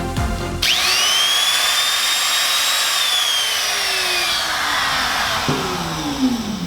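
A corded handheld power tool switched on about half a second in, whining up to full speed almost at once and running steadily. It then winds down with falling pitch over the last few seconds.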